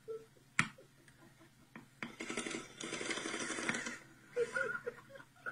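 A single sharp shot from a BB gun about half a second in, followed by about two seconds of rushing noise.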